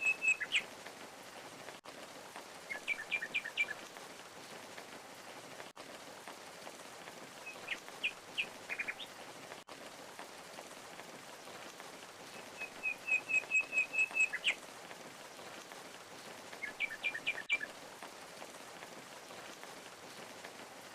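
Steady rushing water of a waterfall with a small songbird singing over it: a quick run of repeated high notes near the start and again about two-thirds through, and short clusters of chirps every few seconds in between. The water noise briefly cuts out about every four seconds.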